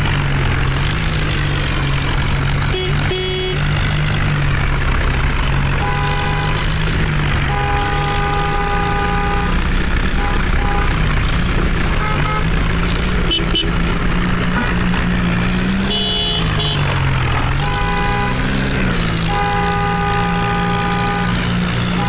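Heavy diesel engine running, its pitch rising and falling a little, with several long, steady horn toots over it.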